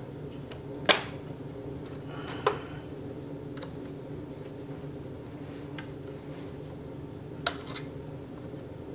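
A few sharp plastic clicks and snaps as the bottom case of an HP Pavilion laptop is pried loose from its clips with a small screwdriver. The loudest comes about a second in, with others near the middle and the end, over a steady low hum.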